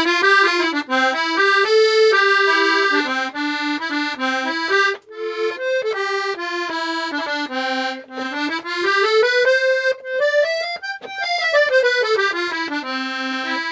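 Hohner Arietta accordion's treble side played on two reed sets, a melody of held notes that climbs in a run and falls back near the end. The reeds are freshly cleaned and valved but not yet tuned, and the sound is a tiny bit harsh, which the restorer puts down to the tremolo reeds perhaps being a bit sharp.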